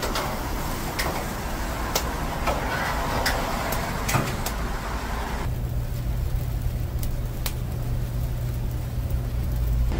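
Steady low rumble of motor vehicles, like street traffic, with scattered sharp clicks. About five and a half seconds in the higher-pitched noise drops away, leaving a steady low hum.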